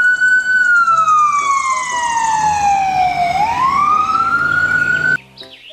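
Ambulance siren in a slow wail: the pitch rises, slides slowly down over about three seconds, then rises again before cutting off suddenly near the end.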